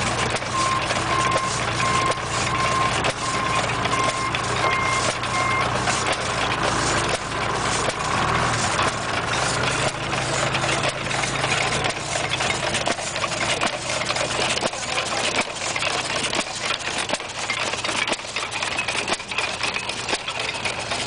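Ottawa drag saw at work: its hit-and-miss engine runs with a steady run of knocks while the long crosscut blade drags back and forth through a log. For the first few seconds a vehicle's reversing beeper sounds over it in short repeated beeps.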